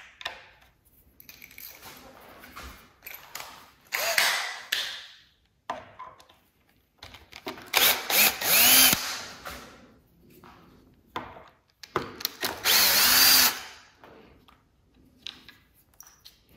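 Cordless drill-driver driving screws into the motor end cap of a DeWalt DW717 miter saw, in several short runs; the two longest and loudest, in the second half about four seconds apart, wind up and down in pitch as the screws seat. Small clicks and handling of the cap and screws fall between the runs.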